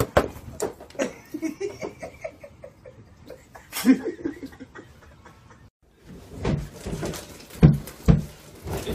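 People laughing in short repeated bursts. After a brief gap about six seconds in, a run of thumps and scuffling.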